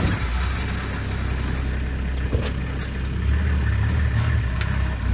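Engine of a four-wheel-drive safari truck running with a steady low hum, just after being started; it gets a little louder about three seconds in.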